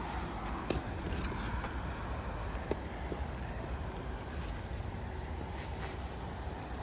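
Steady low outdoor rumble, wind on the microphone, with a few faint taps and clicks.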